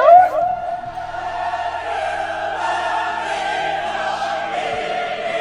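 Choir music: a loud sung note slides upward at the start, then settles into one long held choral note.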